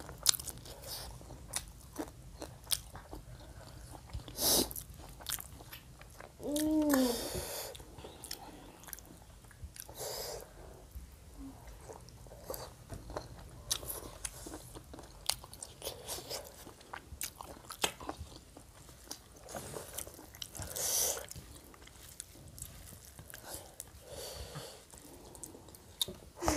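Close-miked chewing of rice and curry eaten by hand, with wet mouth clicks and lip smacks throughout. A short hummed "mm" comes about seven seconds in, and a few brief breathy sounds stand out here and there.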